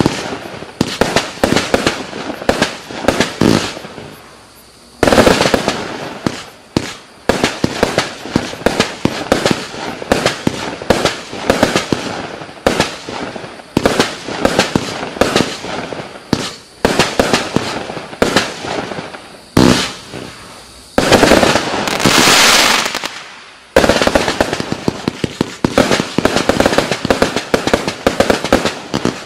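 Klasek 268-shot, 20 mm calibre firework battery firing: a rapid string of launches and small aerial bursts, several a second. It thickens into denser barrages about five seconds in and for about two and a half seconds a little past the middle.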